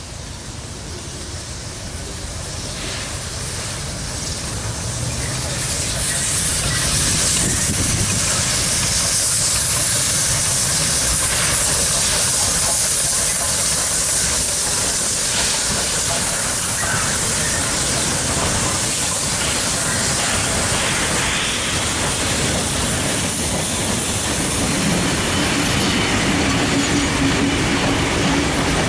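Beyer-Garratt 4-8-4+4-8-4 articulated steam locomotive 6029 passing close by, hissing steam and growing louder over the first few seconds. Its passenger carriages then roll past with wheel clatter and knocks, and a steady low tone comes in near the end.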